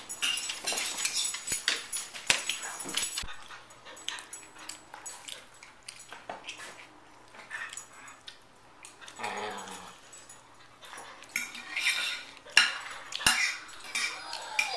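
Two pet dogs active and making noise, with many sharp clicks and metallic clinks. Louder flurries come about nine and twelve seconds in.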